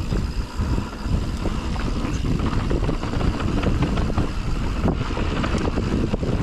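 Mountain bike rolling over a dirt trail: low rumble of tyres and wind on the microphone, with the bike rattling and clicking over bumps throughout.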